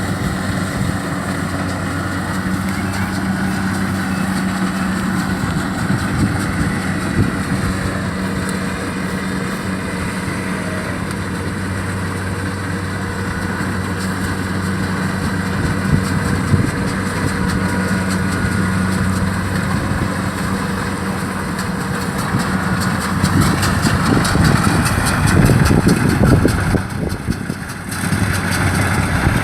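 Kubota DC-70 rice combine harvester running steadily with an even engine hum; it grows louder and noisier about three-quarters of the way through, dipping briefly near the end.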